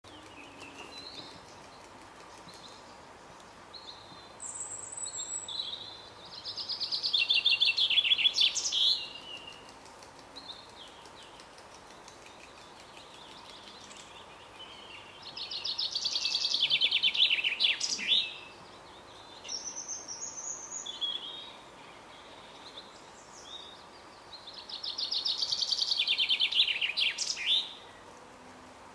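A songbird singing a loud, fast trilling song three times, about every nine seconds, each phrase building up and ending in a quick flourish, with quieter short notes in between.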